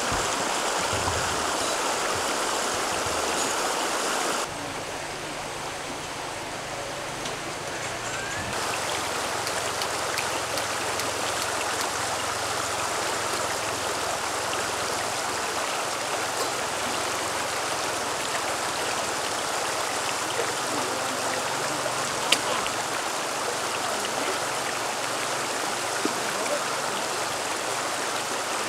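Shallow river flowing over rocks: a steady rush of water. About four seconds in it turns quieter and duller for a few seconds, then comes back full; a single sharp click sounds about two-thirds of the way through.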